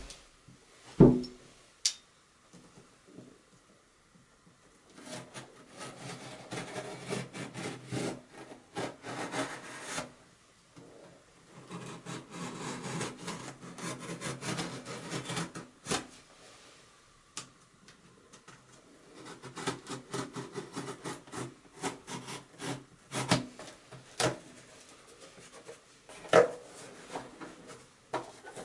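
Utility knife cutting through packing tape and cardboard on a parcel box, in three long stretches of rapid scraping strokes with a few sharp knocks between them. A heavy thump about a second in is the loudest sound.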